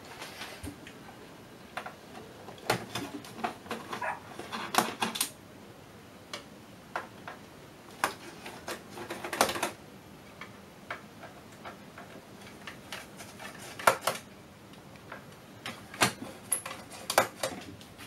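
Irregular clicks, small metallic knocks and scrapes of a long hand screwdriver undoing the mounting screws on the black metal modules of an autopilot computer rack.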